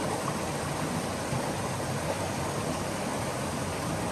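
A small waterfall and river rushing steadily, an even wash of water noise.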